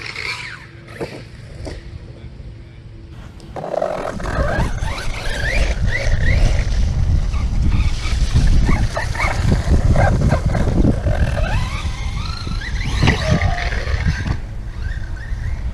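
Redcat Landslide XTE electric RC truck's brushless motor whining, its pitch rising and falling in short bursts as the throttle is worked, over a low rumble. It is quieter for the first few seconds, then louder, with a few sharp knocks.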